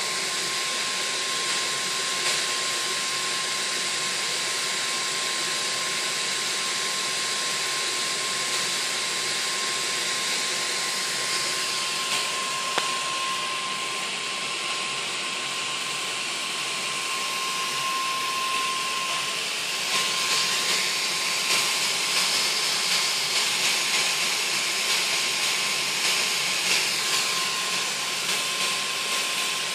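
Multi-jet brass-nozzle gas burner running on a mix of compressed air, HHO gas and hexane, burning with a steady rushing hiss and a thin steady high tone under it. About twenty seconds in it grows a little louder and rougher.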